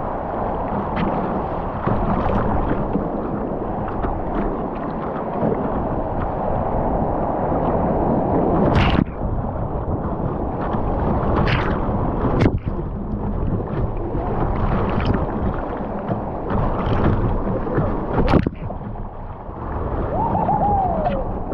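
Whitewater rushing and splashing around a kayak's bow, close to the water. A few sharp splashes stand out: a couple about halfway through and one more near the end.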